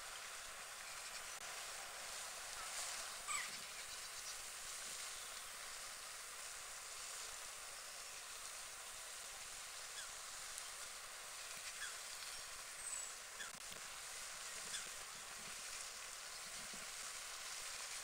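Steady outdoor background hiss with a few faint, brief bird calls from unseen birds, the loudest about three seconds in.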